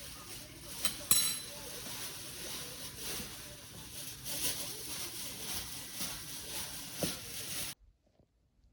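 Tableware clinking about a second in: a sharp clink with a brief high ringing. It sits over steady background hiss and a faint voice, and everything cuts off abruptly near the end.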